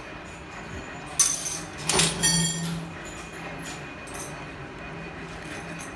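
Steel parts clanking: two sharp metallic knocks about one and two seconds in, the second ringing briefly, over a steady low hum.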